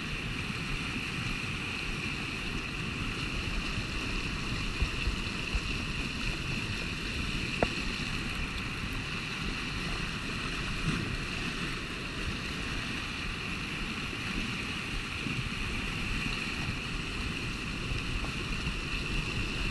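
Steady rush of a high, fast river churning through rapids. A few short sharp clicks stand out around the middle.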